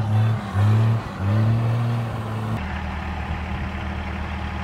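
Cummins diesel in a lifted Ford pickup, running through a 5-inch exhaust to an axle dump. It revs hard in three bursts as the truck spins in the snow. About two and a half seconds in, the sound cuts to a steady, rhythmic diesel idle.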